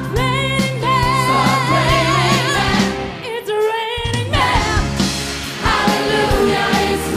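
A woman belting a pop song with vibrato over a live band of drums, bass and keyboards. About halfway through the band drops out for a moment under her held, sliding note, then the full band comes back in.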